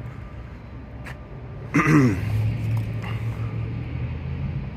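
City traffic: a vehicle engine hum that swells briefly and drops in pitch about two seconds in, then runs on as a steady low hum.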